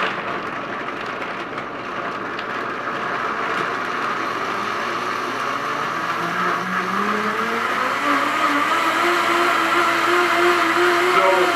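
Vitamix Pro 750 blender running, blending a liquid cashew and almond-milk mix. About six seconds in, the speed is turned up: the motor's whine climbs in pitch over a couple of seconds, then holds steady at high speed.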